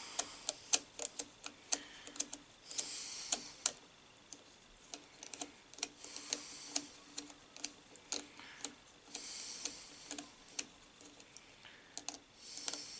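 Small irregular metallic clicks, a few a second, as a screwdriver turns a terminal nut down onto its stud in the terminal box of a Brook Gryphon single-phase induction motor, with a few brief soft hisses between.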